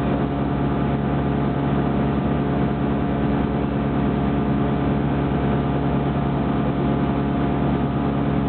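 Light aircraft's piston engine and propeller running steadily in flight, heard from inside the cabin.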